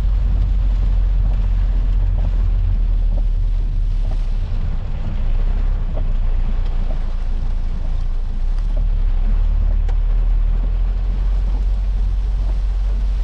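Steady low rumble of a Peugeot 406 saloon heard from inside the cabin while driving on a rain-soaked road, with a fainter hiss over it.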